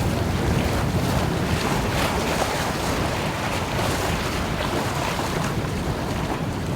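Wind buffeting the microphone over water rushing along the hull of a sailboat under way, a steady noise with no distinct events.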